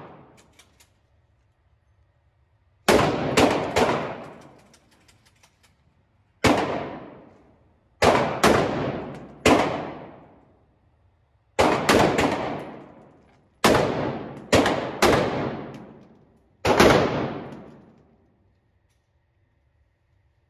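5.56 AR-15 rifle fired about a dozen times at an indoor range, single shots and quick strings of two or three, each shot followed by a long echoing decay.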